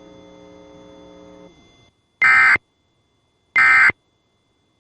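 Two short, loud bursts of Emergency Alert System digital data tones about 1.3 seconds apart, a harsh buzzing warble. These are the SAME end-of-message (EOM) code that closes the alert, after a faint steady hum fades out.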